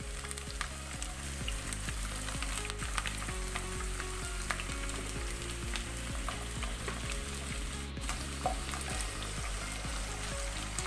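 Garlic, ginger, green chillies and dried red chillies sizzling in hot sesame oil in a nonstick kadai, a steady hiss with fine crackles: the spice-tempering stage of a pickle. Near the end a spatula stirs them.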